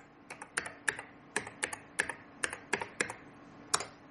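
Keystrokes on a computer keyboard: a dozen or so separate key clicks at a moderate typing pace, with one louder keystroke near the end.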